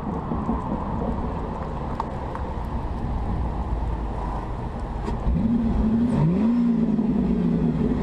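Boss Shinoda Mustang's engine running with a steady rumble. About five seconds in it gets louder and its note rises, then levels off as the car pulls away under power.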